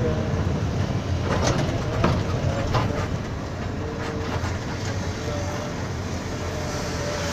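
Bus cabin noise while driving: the engine and tyres give a steady low rumble, with a few rattling knocks from the bus body and fittings between about one and three seconds in.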